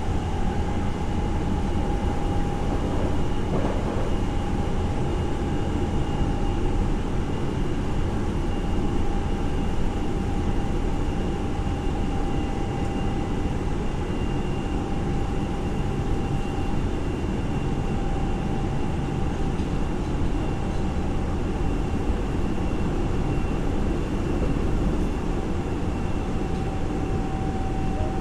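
Ceiling ventilation fans in a Nagoya Municipal Subway 3050-series car running with a steady whine, over the low rumble of the moving train.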